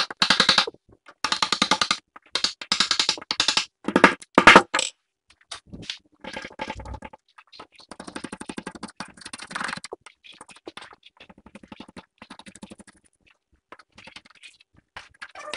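Hand chisel paring a wooden filler strip flush with a cracked solid-wood tabletop: a series of short scraping strokes, each a quick rattle. The strokes are loud in the first few seconds, then fainter and more scattered.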